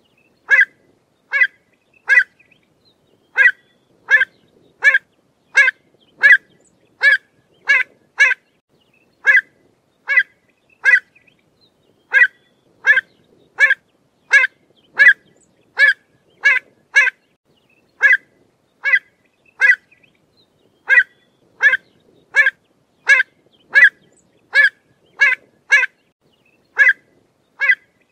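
Pied avocet calling: short, loud calls repeated one or two a second in runs, with a few brief pauses.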